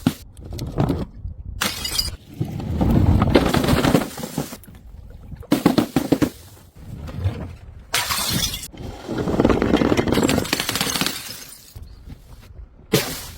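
Glass bottles breaking and shattering, one after another, about five times, some as quick crashes and some as longer crashing and tinkling of glass.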